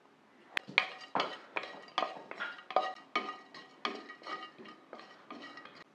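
Wooden spatula stirring and scraping crushed nutmeg roasting in a non-stick kadai: a steady run of strokes, about two or three a second, each with a brief ring from the pan.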